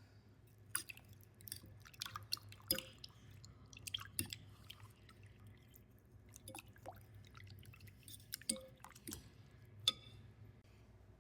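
Scattered light clicks, taps and small wet sounds of things being handled, irregular and fairly quiet, over a faint steady low hum.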